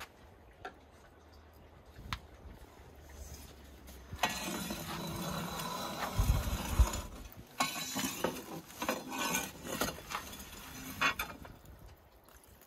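A long wooden pole raking glowing embers across the stone floor of a wood-fired oven: a steady scraping from about four seconds in, a few heavy knocks around six seconds, then irregular scrapes with coals clinking.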